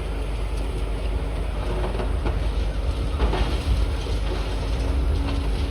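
Demolition excavator working: a steady low engine drone with a few clanks and knocks of rubble about two to three seconds in.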